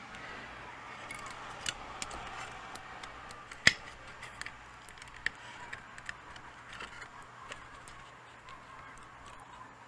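Small plastic clicks and taps from handling the opened PS4 controller's parts while its charging-port board and cable are worked out of the shell, with one sharper click a few seconds in.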